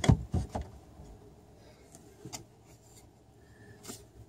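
Companionway hatch board knocking and rubbing against its side slides as it is fitted in: a quick run of sharp knocks in the first half second, then a couple of faint clicks.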